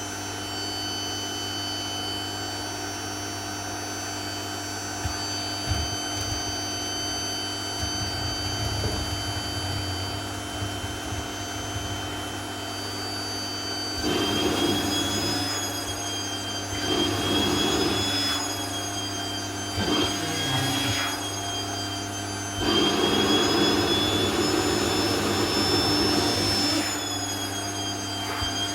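Vacuum cleaner running steadily with a high motor whine and hum, being used on a dress. From about halfway through it gets louder in several stretches, the longest a few seconds near the end, with the whine's pitch wavering.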